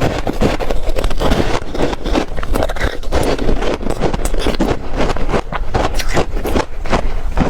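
Close-miked crunching and chewing of frozen ice cake: a dense, irregular run of crackling bites and crunches.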